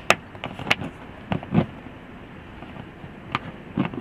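A series of short, sharp taps and knocks as a hand handles the hard plastic side trim panel in an SUV's cargo area, irregularly spaced with a pause in the middle.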